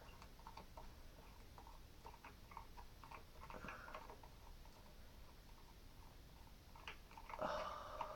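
Faint, scattered clicks and taps of small plastic parts being handled as a GoPro HERO5's mount is unscrewed and taken apart, with a louder burst of handling noise near the end.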